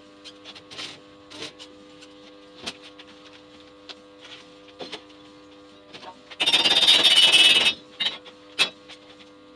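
Cheap AC stick-welding buzz-box transformer humming steadily at idle, with scattered light ticks. About two-thirds of the way through, a loud crackling hiss lasting just over a second, like an arc being struck with a 6013 rod.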